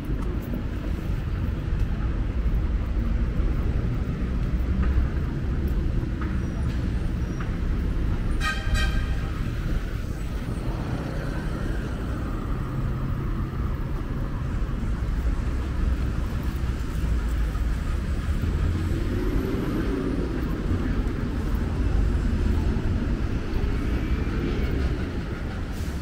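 Outdoor street ambience: a steady low rumble of passing vehicles. About eight and a half seconds in, a short horn toot sounds.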